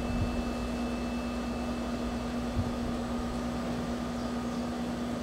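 Steady machine hum with a constant low tone and an even hiss, the running noise of room equipment such as a fan.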